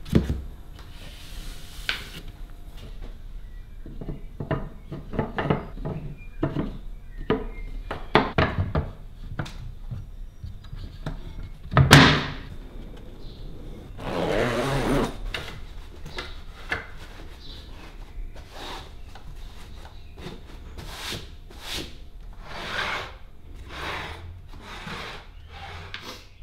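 Workshop handling sounds of a timber dog-bed frame being built: a string of short wooden knocks and rubs, with one loud thump about twelve seconds in. About fourteen seconds in comes a longer rasping sound, a zip on a fabric cushion cover being pulled.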